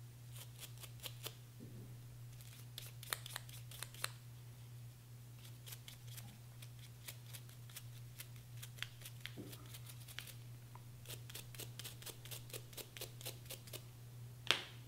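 Nylon-bristle brush scrubbing carbon fouling off small AR-15 bolt carrier group parts (firing pin, cam pin and retaining pin), in short bursts of quick scratchy strokes, over a steady low hum. A single louder click near the end.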